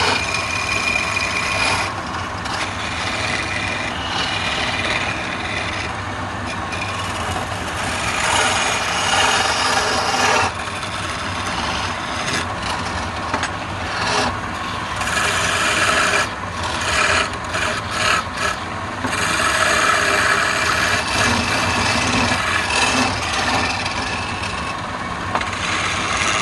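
A hand chisel scraping and cutting a spinning wooden spindle on a lathe, a continuous rasping that swells and eases as the tool is worked along the piece, over a steady low hum from the running lathe.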